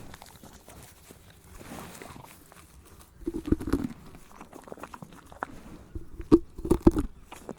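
Eating sounds: irregular crunching and chewing, with two spells of louder, heavier crunches, about three and a half seconds in and again near the end.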